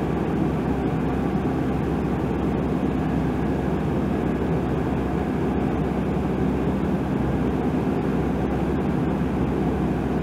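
Steady drone of the Tecnam P2002 Sierra's Rotax 912 flat-four engine and propeller at constant power in flight, heard from inside the cockpit.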